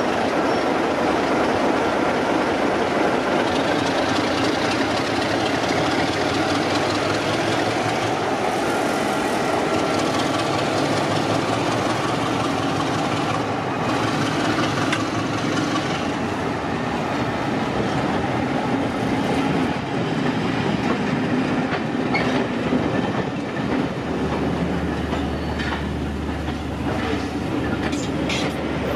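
Heritage diesel locomotive running with a train, a steady dense engine-and-rail sound, with the clickety-clack of wheels over rail joints and a few sharp clicks near the end.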